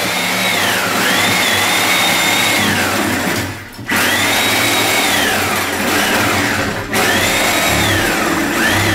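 Electric reciprocating saw cutting into a wooden door frame. Its motor whine sags in pitch as the blade bites and recovers, and it stops briefly twice, about 3.5 s in and again about 7 s in.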